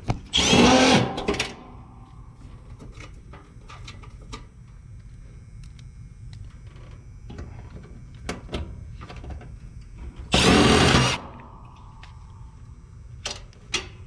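Milwaukee M12 FUEL cordless driver spinning screws at an air-conditioning condenser's electrical access panel. It runs in two bursts of about a second each, one at the start and one about ten seconds later, each winding down as the trigger is released, with light handling clicks in between.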